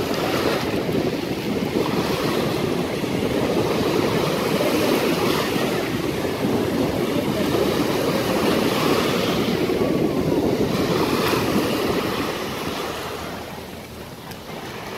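Gulf surf washing in, mixed with wind buffeting the microphone; it eases off somewhat near the end.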